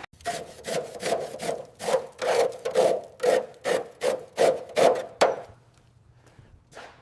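Rhythmic back-and-forth scraping strokes of a hand tool on a surface, about three a second, stopping a little past five seconds in. A few faint knocks follow.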